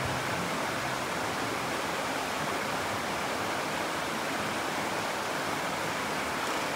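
Steady rushing of a stream's running water.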